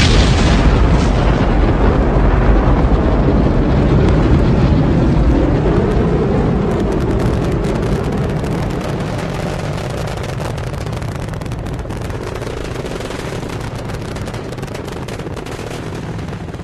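Rocket launch: a loud, deep roar of rocket exhaust that slowly fades from about six seconds in as the rocket climbs away, with crackling in the later part.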